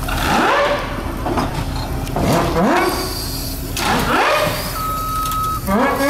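A Case steam traction engine rolling slowly forward toward a small gasoline engine that is running on the ground ahead of its drive wheel. Over a steady low rumble, a pitch rises sharply about four times, roughly every two seconds, and a thin steady high tone sounds briefly near the end.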